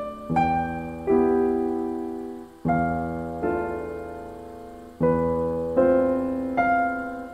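Background piano music: slow, gentle chords and notes, each struck and left to ring out and fade before the next.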